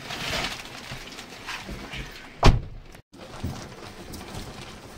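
A door is shut hard once, about halfway through, as a single loud thud over low background noise.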